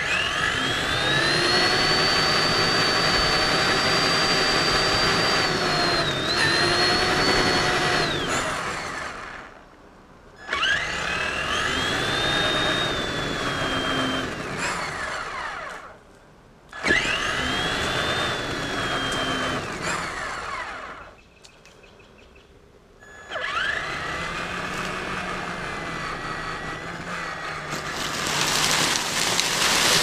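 Traxxas Summit RC truck's electric motor and gears whining as it drives, climbing in pitch as it speeds up, holding, then falling away as the throttle comes off, in four runs with short pauses between. Near the end a rougher, noisier sound comes in as the tyres roll over leaves and dirt.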